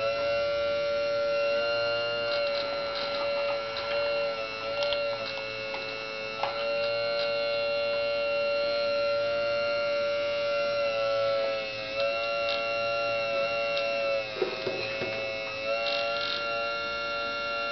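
Radio-controlled scale hydraulic excavator's pump motor giving a steady high whine while it digs and swings, its pitch dipping briefly a few times as the hydraulics take load, with light clicks and rattles of the bucket in the dirt.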